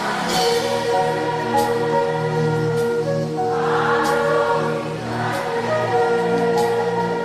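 Congregation singing a gospel worship chorus as a choir, with sustained keyboard-like chords underneath.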